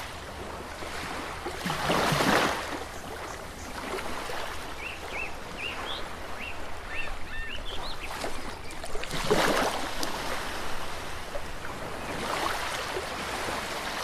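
Ocean surf washing onto a beach, rising in swells as waves break about two seconds in, again around nine seconds and near the end, with a bird chirping in short repeated calls midway.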